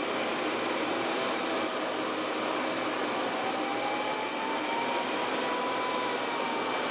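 KingTech model turbojet engine running steadily at high power on a thrust test stand: an even jet roar with a faint whine that rises slightly in pitch about halfway through, then eases back.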